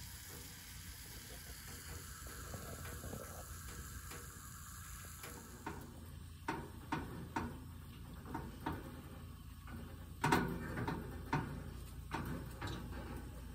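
Chicken and peppers sizzling faintly in a frying pan on a gas camp stove. From about six seconds in, a utensil clicks and scrapes against the pan as the food is stirred, loudest a little after ten seconds.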